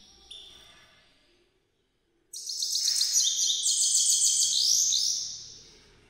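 Goldfinch singing: a fast, loud run of twittering high notes that starts about two seconds in, goes on for about three seconds and fades out, after a faint fading note and a brief dead gap.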